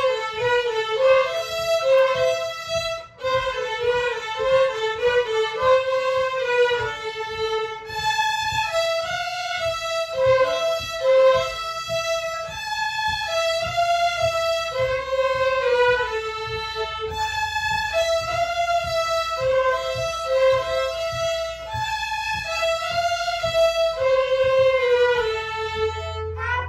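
A group of young violin students playing a melody together on violins: quick short notes for the first several seconds, then slower, longer held notes.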